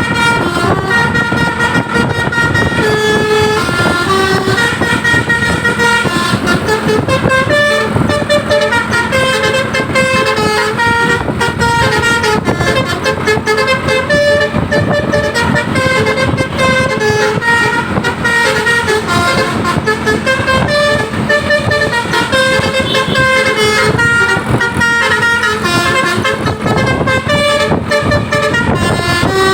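A Basuri 'telolet' multi-tone bus horn playing a stepping melody without a break, its notes changing pitch every fraction of a second.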